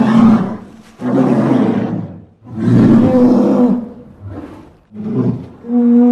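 Deep, rough growling roars of a large animal, about six in a row, one every second or so, the fourth and fifth shorter.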